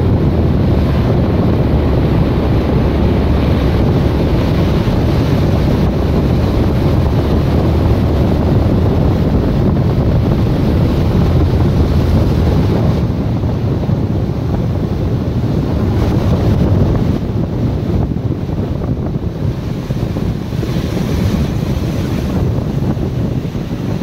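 Rough sea surf breaking and washing over rocks, mixed with strong wind rumbling on the microphone. The noise is steady and dense, easing slightly in the last third.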